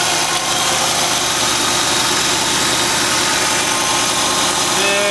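1979 Ford Bronco's V8 engine idling steadily with the air-conditioning compressor engaged.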